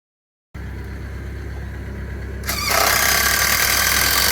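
A vehicle engine idling with a steady low hum; about two seconds in, a loud hiss-like rush joins it for about two seconds.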